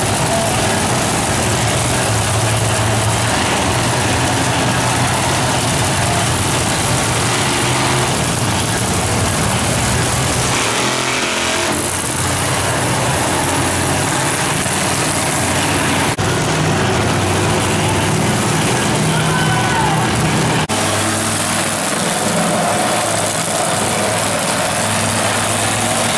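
Monster truck engines running, mostly at idle, with a steady low engine note under a wide wash of noise. The sound changes abruptly a few times where the recording is cut.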